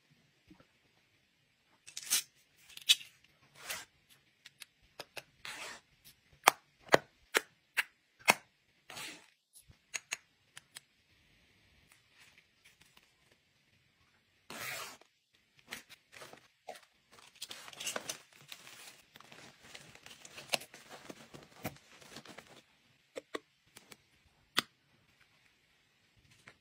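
Small plastic cosmetic bottles and caps being handled and set down: a series of sharp clicks and taps, with a denser stretch of crackling rustle in the second half.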